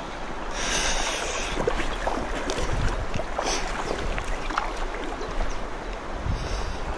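River current rushing and lapping close to the microphone, with low wind rumble on the microphone and a brief brighter rush of water about a second in.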